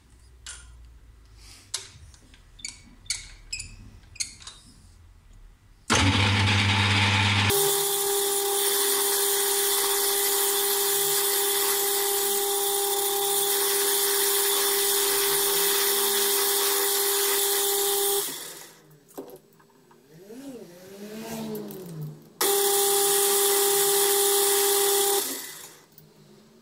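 Metal lathe turning an Ergal aluminium bar: a few handling clicks, then the machine starts with a low hum and cuts for about ten seconds with a loud steady sound and a held whine. It eases off with wavering pitches, then cuts again for about three seconds before stopping.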